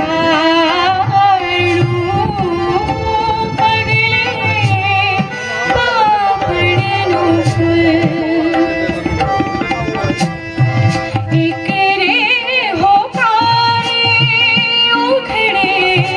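Gujarati sugam sangeet performed live: a woman sings an ornamented melody with harmonium and tabla accompaniment. The tabla strokes come steadily through the song.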